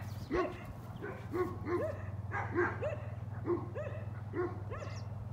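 Farm dogs barking repeatedly in short, separate barks, about nine across a few seconds. It is alert barking at someone arriving.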